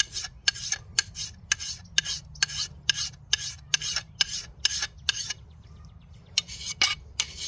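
A 10-inch single-cut mill bastard file rasping across the edge of a steel lawn mower blade in quick, even strokes, about two or three a second. The strokes pause for about a second past the middle, then resume.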